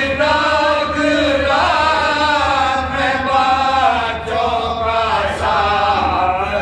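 A group of men chanting an Urdu marsiya, a mourning elegy for the martyrs of Karbala, together into a microphone, in long, slowly wavering held notes with no instruments.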